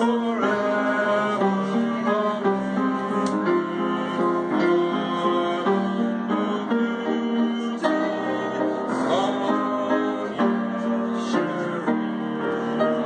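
Upright piano being played: a tune over held chords.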